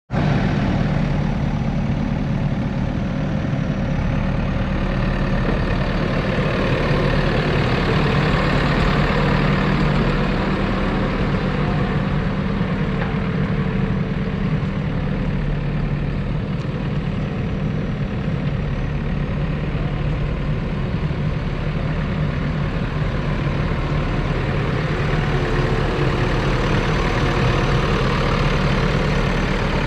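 JCB 3DX Super backhoe loader's diesel engine idling steadily, holding an even pitch with no revving.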